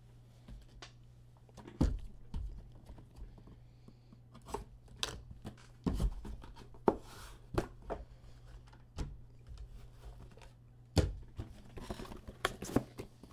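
A cardboard trading-card box being handled and opened by hand on a table: scattered knocks and thumps, the loudest about 2, 6 and 11 seconds in, with rustling and tearing of packaging between them. A low steady hum runs underneath.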